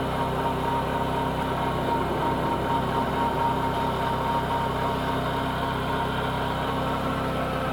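2005 Chevrolet Corsa 1.6-litre four-cylinder engine idling steadily, with a thin steady whine from the accessory-belt drive that fades out about halfway through. The owner takes it for a strange accessory-belt noise of unknown cause.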